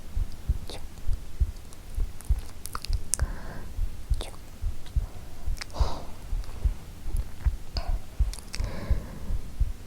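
A recorded human heartbeat thumping steadily as a low, regular lub-dub. A few soft mouth clicks and faint breathy whispers come in over it now and then, mostly past the middle.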